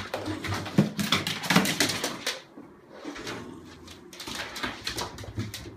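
A frightened dog pulled on a leash off a ledge onto a hard floor: scuffling, knocks and claw clicks, busiest in the first two seconds.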